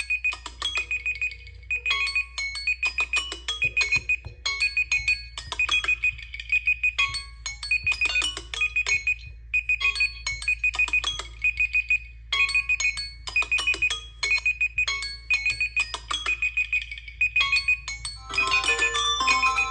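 Electronic phone ringtone: a short melodic phrase with a pulsing high beep, repeated over and over, with a steady low hum beneath. Near the end a different, busier marimba-like ringtone melody takes over.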